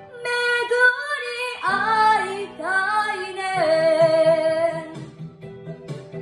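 A young girl singing a Japanese song over a karaoke backing track, holding long notes; her voice stops about five seconds in while the accompaniment carries on.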